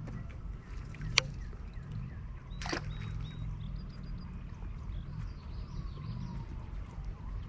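Kayak drifting on a river: a low steady rumble of water and wind, broken by two sharp knocks about a second and a half apart, the first the loudest. Faint bird chirps sound in the background.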